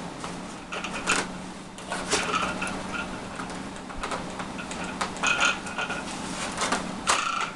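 Foam parts of an RC model plane squeaking and creaking in short irregular bursts as they are handled and pushed together, over a steady low hum.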